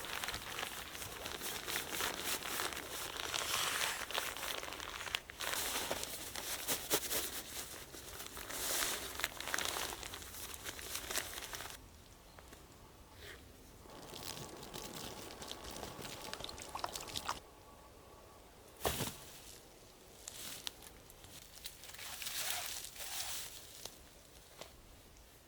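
Rustling and crinkling of camping gear being handled and packed, with scattered clicks. The handling is busy for about the first half, then sparser, with one sharp knock about two-thirds of the way through.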